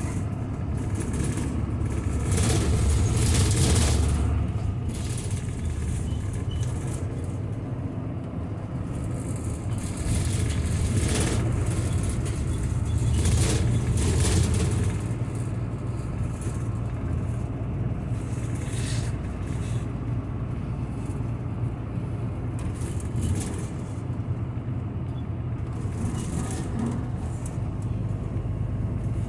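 Route bus in motion, heard from inside the cabin: a steady low engine and road rumble with tyre hiss, swelling louder twice, a few seconds in and again near the middle.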